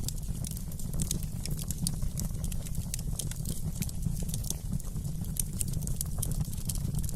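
Wood fire burning in a fireplace, crackling with many quick, irregular pops and snaps over a steady low rumble of the flames.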